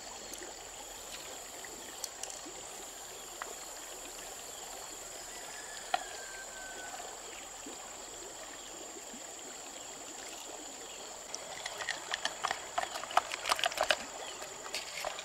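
Shallow stream running steadily over stones, with a thin, steady high-pitched tone above it. From about eleven seconds in, a quick run of sharp clicks and scrapes as a knife works inside an opened freshwater mussel shell.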